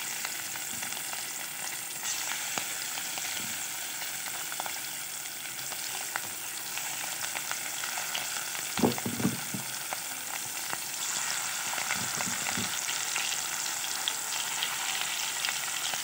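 Rohu fish steaks sizzling steadily as they fry in hot mustard oil in a stainless steel pan, with a few knocks around the middle. The sizzle grows a little stronger in the second half as the pan fills with more pieces.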